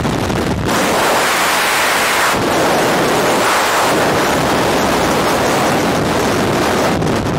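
Rushing air of a skydiving fall blasting over the camera's microphone: a loud, steady wind noise that turns higher and hissier about a second in.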